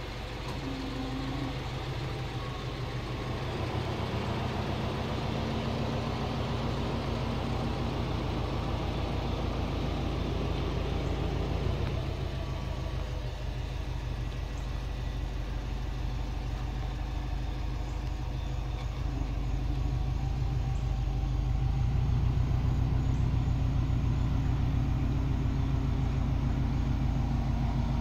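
2005 Subaru WRX STi's turbocharged 2.5-litre flat-four boxer engine idling steadily. It grows louder in the last several seconds as the exhaust comes nearer.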